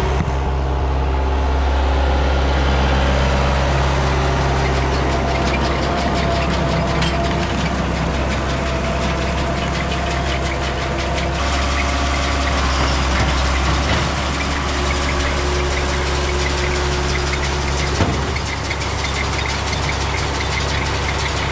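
John Deere 6110 tractor's diesel engine running steadily, with a fast, fine mechanical clicking over it in the middle and again near the end, and a single sharp knock near the end.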